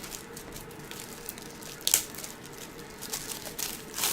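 Quiet handling noise from trading cards and their plastic packaging: faint crinkling with a few short clicks, the sharpest about two seconds in and several more near the end.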